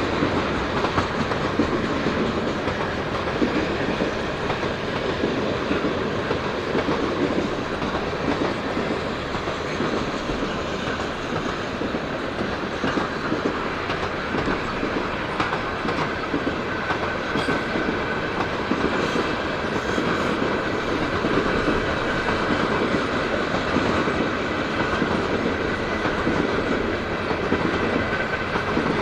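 Canadian National freight train's cars rolling steadily past, their wheels clacking over the rail joints.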